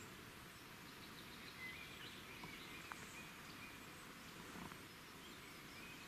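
Faint outdoor hiss with a few soft, short bird chirps, once about two seconds in and again near the end.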